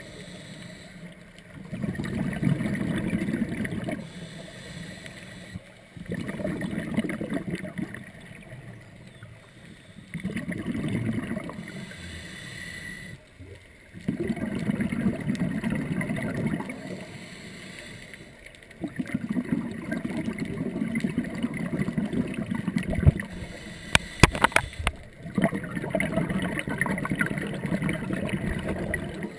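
Scuba diver's breathing through a regulator, heard underwater: exhaled bubbles gurgle in a steady rhythm, a burst every four to five seconds with quieter inhales between. A few sharp clicks come about three-quarters of the way through.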